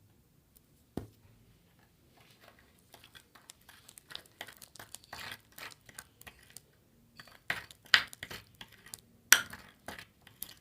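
Sticky homemade slime that never set properly being handled and pulled apart, giving irregular crackling, tearing and sticky clicking noises. There is a sharp tap about a second in, and the loudest cracks come near the end.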